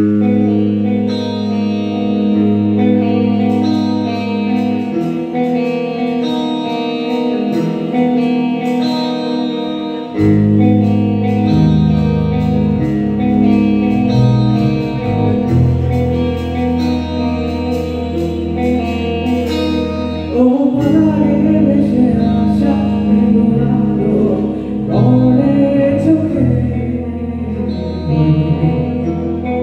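Live rock band playing: electric guitars over bass guitar and a drum kit. The bass line changes about ten seconds in, and a wavering lead melody comes in around twenty seconds.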